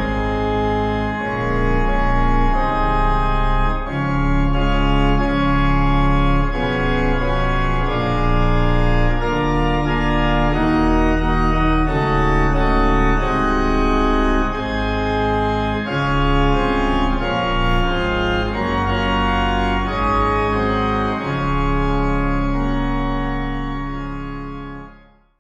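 Organ music in held chords that change every second or so, fading out in the last second.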